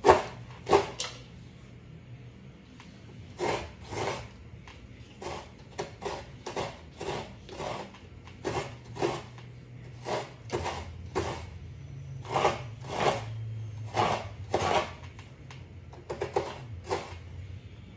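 Fresh coconut meat being grated by scraping a coconut half against the serrated metal blade of a kudkuran, a Filipino coconut-grater stool: short rasping strokes in runs of two to six, with brief pauses between runs.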